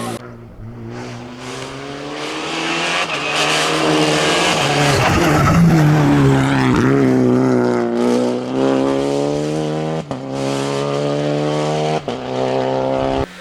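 Rally car at full throttle passing close by, its engine pitch climbing then dropping at each upshift, with short sharp breaks in the sound at the gear changes about two seconds apart near the end. It is loudest around the middle as it goes by.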